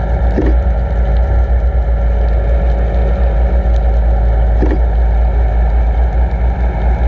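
Steady low rumble and rush of water flowing over a towed underwater camera's housing, with a faint steady hum from the towing boat carried through the water. Brief, slightly louder swishes about half a second in and again about four and a half seconds in.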